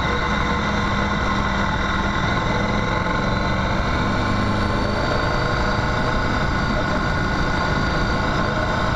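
Motorcycle engine running steadily while riding on a gravel track, with wind and tyre noise mixed in.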